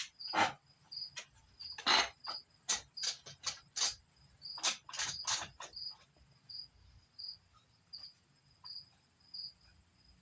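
A run of sharp clicks and knocks during the first six seconds as bar clamps and glued maple and mahogany strips are handled and clamped, then fewer. Behind it a cricket chirps steadily, a short high chirp about every 0.7 seconds.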